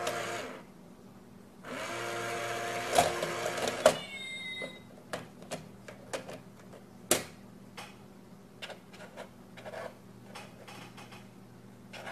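A small motor in a toy box whirring steadily for about two seconds, followed by a short meow-like squeal and then a string of light clicks and taps on the box.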